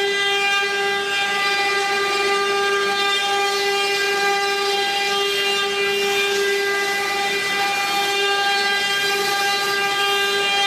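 Multi-spindle CNC engraving router running, its spindle motors giving a steady high-pitched whine with a hiss behind it.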